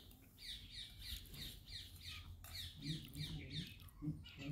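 Babbler calling: a run of short, squeaky calls that fall in pitch, about three a second.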